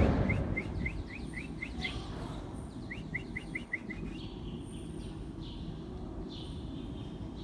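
Small bird chirping in two quick runs of short, evenly spaced chirps, about four a second, the first in the opening two seconds and the second around three seconds in, with fainter calls after. A brief thump sounds at the very start.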